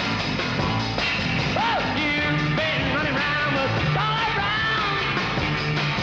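Sixties beat-group rock and roll: a band with a lead singer over a steady beat.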